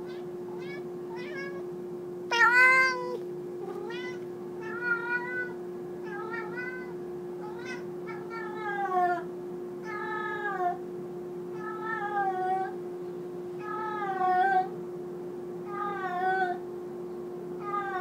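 Domestic cat meowing loudly over and over, a drawn-out call every second or two, each bending in pitch, the loudest about two seconds in. A steady low hum runs underneath.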